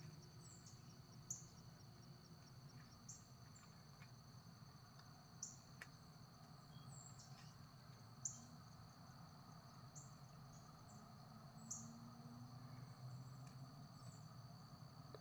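Faint crickets and other insects chirping: a steady high trill with short, high chirps repeating every second or so. A few soft, sharp clicks come several seconds apart.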